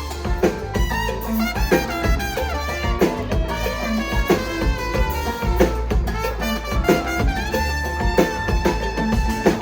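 Live Latin pop band playing an upbeat instrumental passage, with horns carrying the melody over bass and drums.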